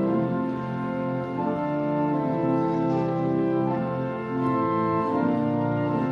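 Church pipe organ playing a hymn tune in slow, sustained chords.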